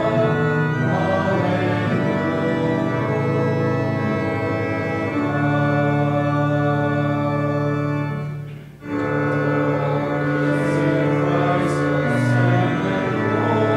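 Organ playing slow, sustained chords, breaking off briefly about eight and a half seconds in before going on.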